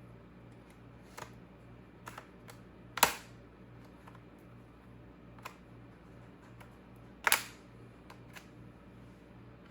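Scattered clicks and taps of hard objects being handled, with two louder knocks about three seconds and seven seconds in, over a steady low hum.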